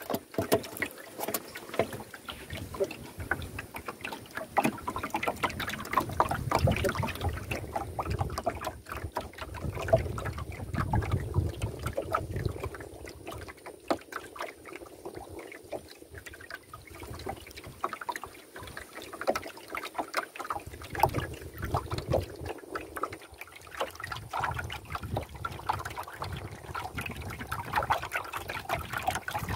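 Water lapping and trickling against the hull of a small wooden canoe, uneven throughout, with many small splashes and knocks.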